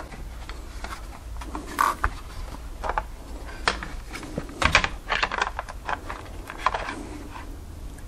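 Scattered light clicks and taps of a Flysky FS-ST8 radio-control transmitter's plastic case being handled and opened up, with a denser run of clicks around the middle.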